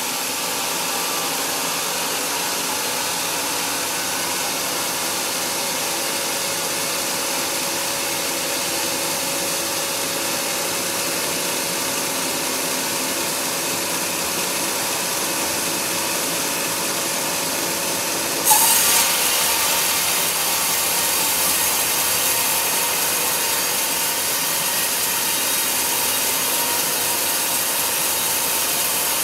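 Band sawmill blade running and sawing through a large log, a steady rasping hiss with a faint running hum. About two-thirds of the way through, the level jumps suddenly and the sound turns brighter as the blade bites into the wood for a new cut, which carries on to the end.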